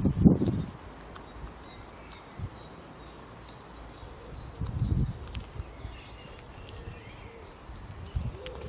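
Faint birds chirping in short high notes, broken by three low bumping rustles: one at the start, one about halfway through and one near the end.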